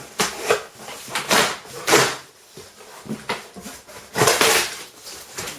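Cardboard packaging being handled and pulled open: a series of separate scrapes and rustles, the longest about four seconds in.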